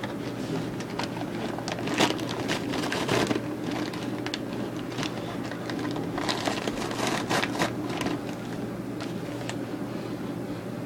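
Popcorn kernels popping: irregular sharp pops, thickest in two clusters, over a steady low hum.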